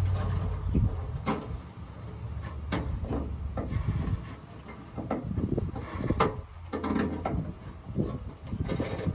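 Irregular metallic clicks, knocks and rattles from hands working the tailgate lock and latch mechanism of a 2000 Ford Ranger, with a low rumble fading out about a second in.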